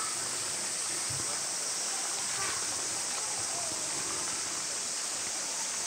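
Steady outdoor background hiss, with faint distant voices of visitors, children among them.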